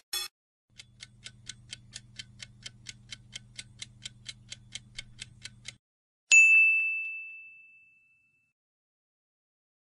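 Quiz countdown-timer sound effect: clock ticks about four a second over a low hum, lasting about five seconds, then a single bright bell ding about six seconds in that rings out for a second and a half, marking the answer reveal.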